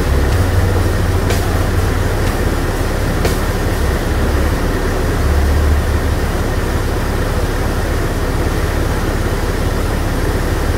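Whitewater rushing down a rocky creek channel: a loud, steady rush with a deep low rumble underneath.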